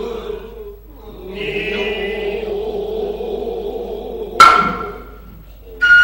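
Low, steady Noh chanting (utai), with one sharp hand-drum stroke about four and a half seconds in. Just before the end, the high, shrill, steady note of the nohkan flute comes in.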